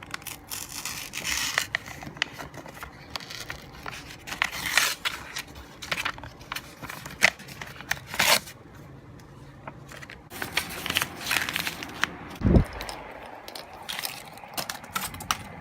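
A paper journal page being torn out and handled, with irregular ripping and crinkling rustles. A single low thump about three-quarters of the way through is the loudest sound.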